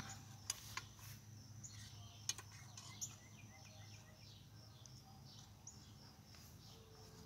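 A metal fork and knife clink and scrape against a tin plate a few times, mostly in the first three seconds. Behind them are faint outdoor sounds: birds chirping in short falling notes, and a steady high insect trill.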